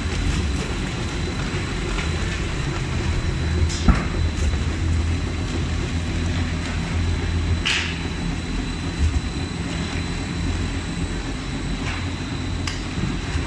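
Rotary veneer peeling lathe running while peeling a log, a steady low mechanical rumble with a faint steady high whine. A few short sharp cracks cut through it, one a little under a third of the way in and a louder one a little past halfway.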